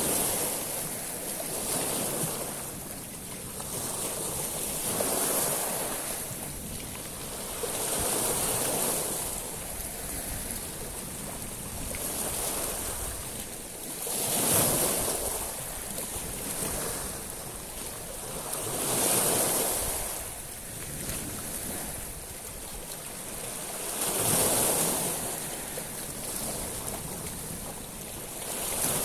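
Sea waves washing onto a shingle beach of small stones, a steady hiss that swells into a surge every few seconds and falls away again.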